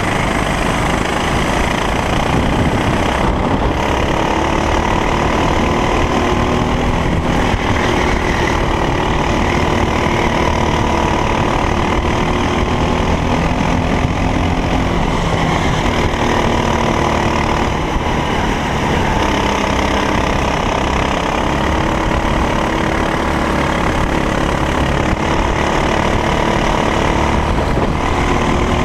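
Racing kart engine running hard at race pace, its pitch climbing steadily and then dropping and climbing again several times as it accelerates and slows through the lap.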